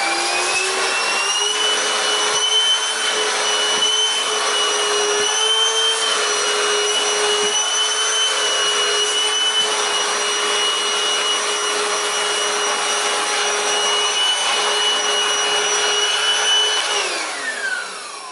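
Deik MT1206 cordless stick vacuum running: a steady high-pitched motor whine over a rush of air. Near the end the whine glides down as the motor spins down.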